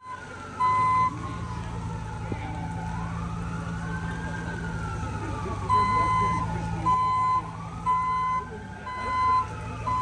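An emergency-vehicle siren wails, rising and falling slowly over a few seconds at a time, over the steady low hum of idling engines. A reversing alarm beeps once near the start, then about once a second from the middle on.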